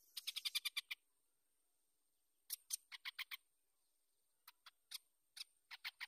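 Bird calls: runs of short, sharp chirps, about ten in quick succession in the first second, a run of six about two and a half seconds in, and several scattered ones near the end.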